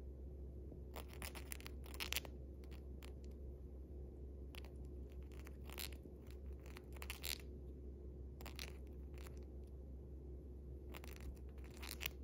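Cockatiel grinding its beak: short runs of fine, scraping clicks in several clusters a few seconds apart. Beak grinding is the sign of a relaxed, content bird settling down to rest.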